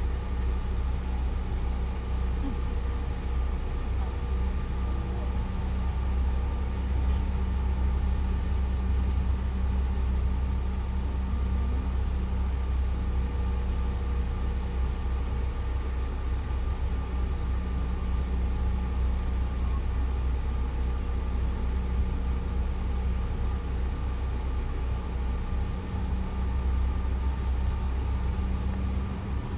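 Steady cabin drone of a Bombardier CRJ900 airliner, its two rear-mounted GE CF34 turbofans running: a deep, even rumble with a few steady hum tones over it.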